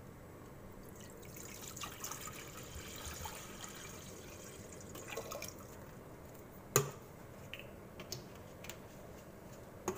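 Water poured from a bottle into an empty stainless-steel saucepan, splashing for about four seconds before it stops. A sharp knock follows a little later.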